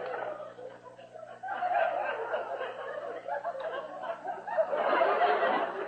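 Sitcom audience laughing: many people at once, dipping briefly, then swelling again about a second and a half in and peaking near the end.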